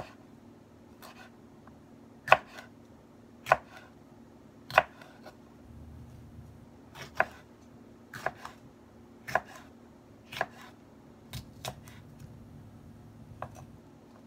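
Chef's knife slicing jalapeño peppers on a wooden cutting board: a sharp knock each time the blade cuts through and meets the board, about ten unhurried cuts roughly a second apart.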